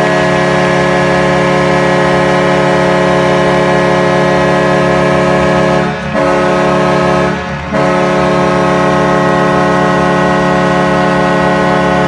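Kahlenberg T-3 three-chime air horn blowing as an arena goal horn, signalling a home-team goal: a loud, steady chord, broken briefly twice about six and seven and a half seconds in, and stopping near the end.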